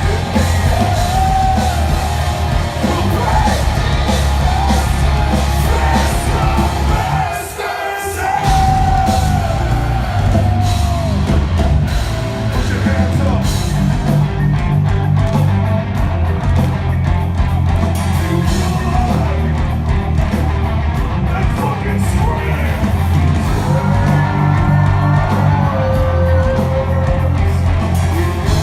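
Heavy rock song with loud sung and yelled vocals over a heavy bass and drum backing; the band briefly drops out about seven and a half seconds in.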